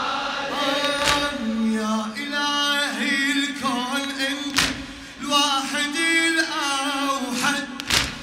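A male reciter chanting an Arabic Husseini lament (latmiya) in a long-held, gliding melody through a hall PA. It is struck three times, about every three and a half seconds, by a sharp slap, the mourners beating their chests in time.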